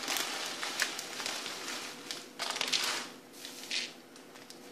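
Dry barley flakes pouring from a crinkling plastic bag into a cup, in a few rustling bursts that fade near the end.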